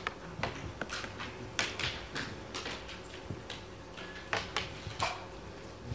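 Scattered irregular clicks, taps and rustles from an audience in a lecture hall, over a faint steady hum.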